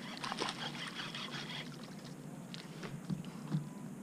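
Faint, fast clicking of a fishing reel being wound in as a small hooked bass is brought to the boat, with a couple of light knocks about three seconds in.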